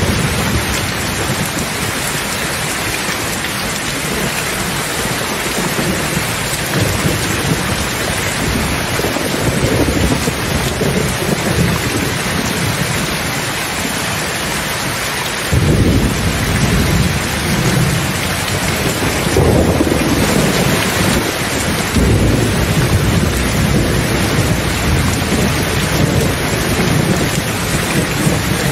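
Steady rain with rolling thunder. A loud rumble of thunder starts suddenly about halfway through, and further low rumbles follow.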